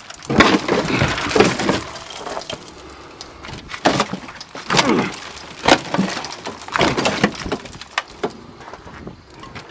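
Irregular metal knocks, clanks and scrapes from the gas tank and its rusted mounting strap being worked loose under a 1982 Toyota Cressida. Sharp knocks come roughly once a second, with rough scraping between them, a few scrapes falling in pitch.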